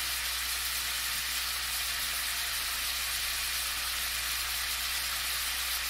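Pieces of chicken frying in a hot pan, a steady sizzle.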